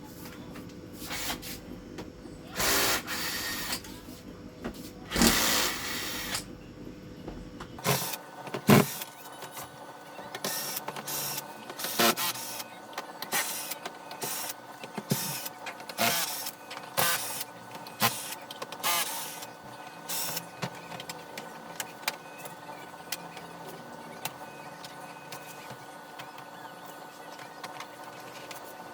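Electric screwdriver whirring in short runs, then scattered clicks and knocks of screws and plastic TV panel parts being handled.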